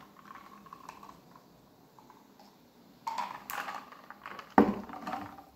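Ice cubes clinking and shifting in a cup of drink as it is sipped and lowered, then one sharp knock a little after four and a half seconds as the cup is set down on a wooden table.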